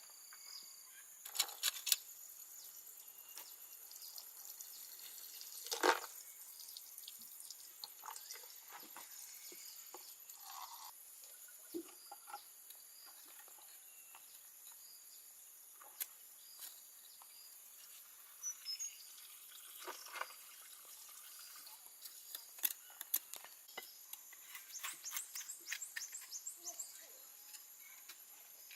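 Insects droning steadily at a high pitch, with scattered sharp clicks and knocks, several in a quick cluster near the end, and a few faint chirps.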